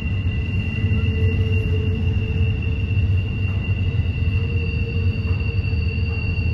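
A train rolling through a tight curve, its wheel flanges squealing against the rails in steady high-pitched tones over the low rumble of the cars.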